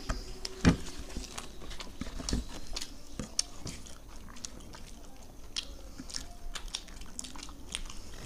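Two people eating roti with palak paneer by hand: chewing, mouth clicks and roti being torn, with a loud knock about a second in.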